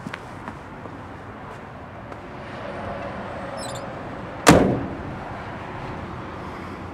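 A few light footsteps on asphalt, then one sudden loud thump about four and a half seconds in, dying away quickly.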